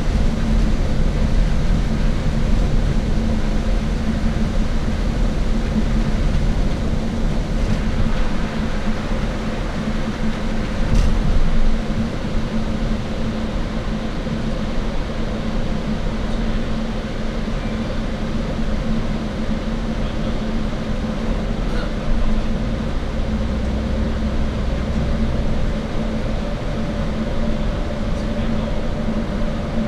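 Steady drone of an HZMB shuttle bus driving along, heard from inside the cabin: engine hum and road rumble with a constant humming tone underneath.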